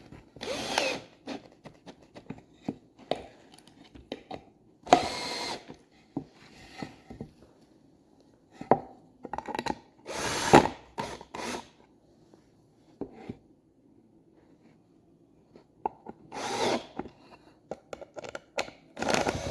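Power drill driving screws into wood in about five short bursts, each under a second, with clicks and knocks of handling between them.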